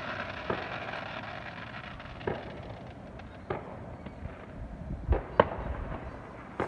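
Fireworks going off: about six separate bangs at uneven gaps of one to two seconds, with two close together near the end being the loudest.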